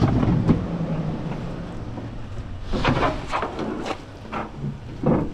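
A vehicle engine running with a low steady hum that fades after about two and a half seconds, followed by brief muffled voices.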